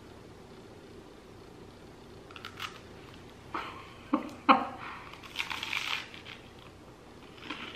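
Biting into and chewing a crunchy cracker: a few sharp crunches from about two seconds in, the loudest a little past four seconds, then a second or so of dense crunching as it is chewed.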